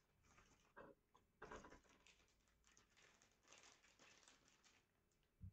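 Faint crinkling of a clear plastic bag as a replacement phone screen assembly is handled and unwrapped, with a couple of soft knocks in the first second and a half.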